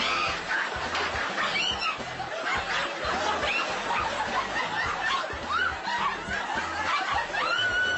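An audience laughing on and off, many voices together.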